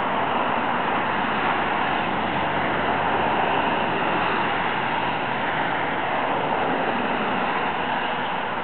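Steady noise of motorway traffic passing close by.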